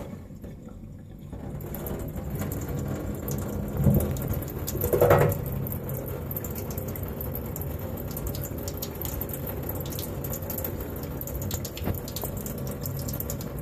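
Thin stream of tap water splashing steadily into a stainless steel sink basin, growing a little louder over the first two seconds, with two brief louder sounds about four and five seconds in.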